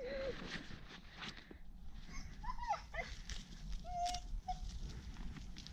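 Dog whining in short, high cries that bend in pitch, in three brief bouts, over light scuffling and a few clicks.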